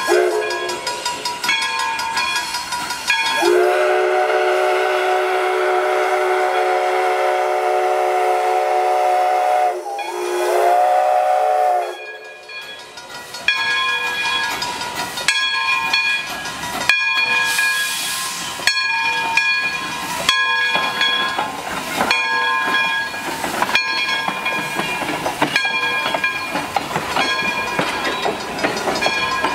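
Steam whistle of a 0-6-0 steam locomotive blowing a long chord of about six seconds, then a shorter blast of about two seconds, over a ringing level-crossing bell. After that the locomotive pulls away with slow exhaust chuffs about once a second and a burst of steam hiss, while the crossing bell keeps ringing.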